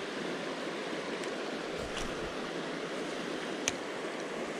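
Shallow creek water running over rocks: a steady rushing hiss, with a few small clicks, the sharpest about three and a half seconds in.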